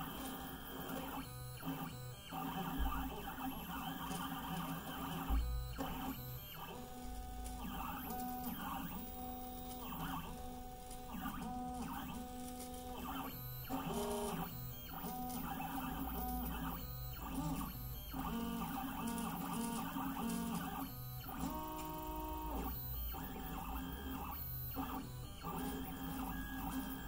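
Stepper motors of a Mostly Printed CNC (MPCNC) pen plotter whining as the machine traces arcs and lines. The pitch jumps with each move, with many short gaps between moves.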